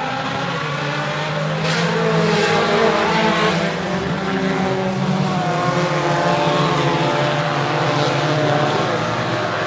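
Several U-car class dirt-track race cars' engines running hard at racing speed around the oval, overlapping drones that swell as cars pass close by about two seconds in.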